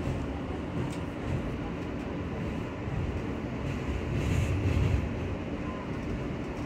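Interior sound of an R143 subway car on the L train running along the track: a steady low rumble that swells louder about four seconds in.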